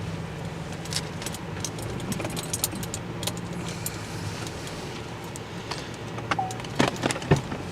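Car engine idling with a steady low hum, under scattered light metallic jingling and clicks like keys or gear rattling, and a few louder knocks near the end.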